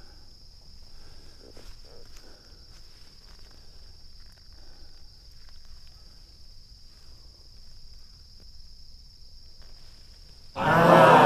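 Steady high-pitched insect chirring, with faint rustling and clicks of dry pine needles as a freshly picked pine mushroom is handled. Near the end, a brief much louder burst of sound breaks in.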